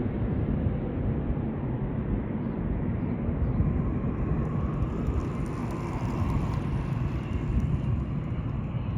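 Ryanair jet airliner's engines, a steady low rumble.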